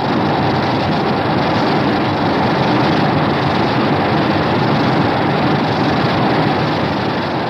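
Film creature sound effect: a loud, steady rushing rumble that starts suddenly and begins to fade near the end.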